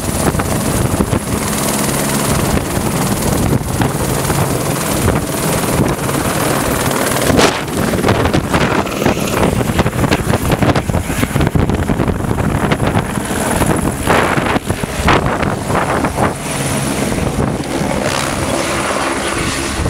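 Helicopter hovering low overhead with a load on a long line: steady rotor and engine noise with a thin high whine, and the rotor downdraft buffeting the microphone in gusts.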